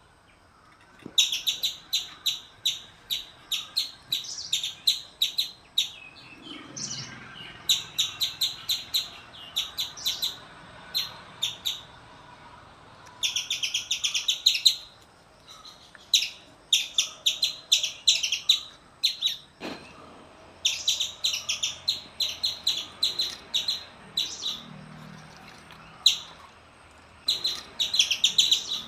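Bird-like chirping: short, sharp, high chirps repeated rapidly, several a second, in bursts of a second or two with short pauses between.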